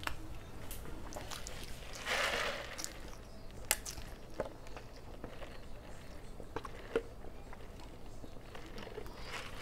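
A person sipping a drink from a foam cup, close to a clip-on mic. There is a brief rush of noise about two seconds in and a few sharp clicks.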